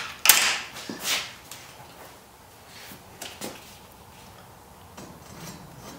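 Workshop handling noises: a few sharp clunks and scrapes in the first second and a half as a tool is set down on a metal workbench and a wheelchair wheel is picked up, then a softer knock or two about three and a half seconds in as the wheel is brought to the generator's axle.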